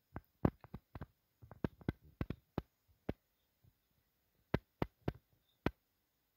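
A run of faint, sharp clicks or taps at an uneven pace, about twenty in all, bunched in quick clusters with a pause in the middle.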